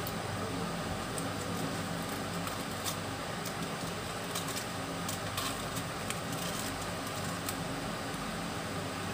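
A steady mechanical hum with a few faint clicks scattered through it.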